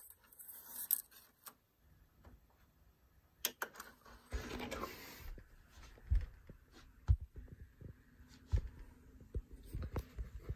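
A DVD disc set onto an LG DVD player's open tray with a few light plastic clicks, then a short whir about four seconds in as the tray motor closes. After it, several soft low thumps a second or so apart as the drive spins up and reads the disc.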